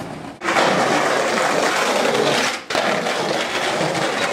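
Skateboard wheels rolling over rough paving and concrete, a steady gritty roll that cuts out abruptly about half a second in and again near three seconds.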